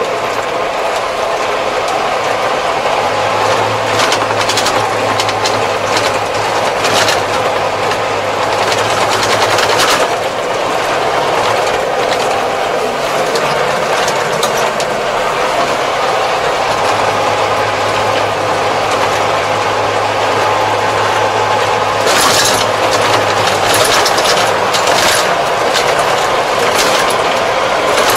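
Kubota tractor's diesel engine running steadily as it drives along a road, heard from inside the cab. Clusters of rattling clicks and knocks come a few seconds in and again near the end.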